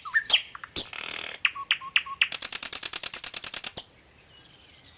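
Small birds chirping close by in quick short calls, followed by a fast rattling trill lasting about a second and a half. After the trill only faint bird calls remain.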